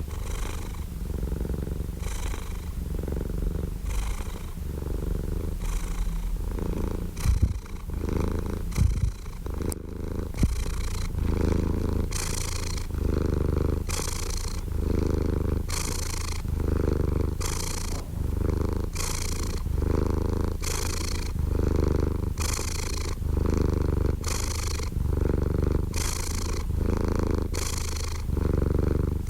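Domestic cat purring close up: a continuous rumble that swells and fades with each breath, about once a second. A few brief bumps a third of the way in.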